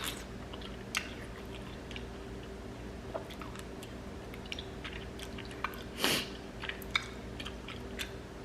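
A person chewing a mouthful of food close to the microphone, with scattered wet smacks and clicks and one louder, longer noisy sound about six seconds in.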